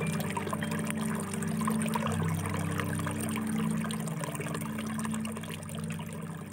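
Water pouring and trickling, over soft background music with low sustained tones.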